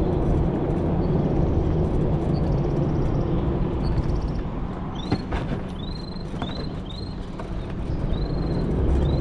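Steady low rumble of wind and tyres from riding slowly along a paved road in an open vehicle. A run of short high chirps comes in from about halfway through, repeating irregularly.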